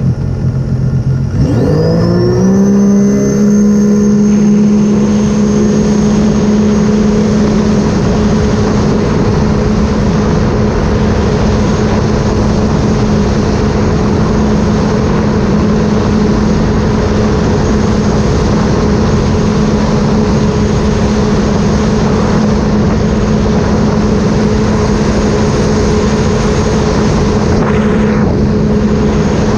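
2018 Sea-Doo RXP-X 300 personal watercraft's supercharged three-cylinder engine under way. The revs rise about two seconds in, then hold steady at cruising speed, with a thin high whine riding along.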